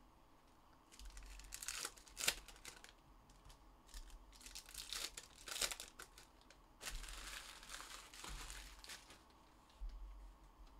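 Trading-card pack wrappers being torn open and crinkled: three bursts of rustling, with a sharp rip about two seconds in.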